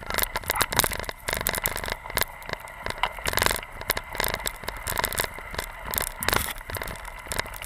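Hokk skis sliding and scraping through deep snow while being pulled along at speed: an irregular run of scrapes, crackles and knocks, with a few louder jolts.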